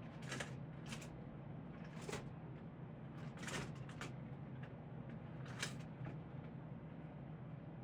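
Scattered light clicks and knocks, about half a dozen, from hands handling parts and tools, over a steady low hum.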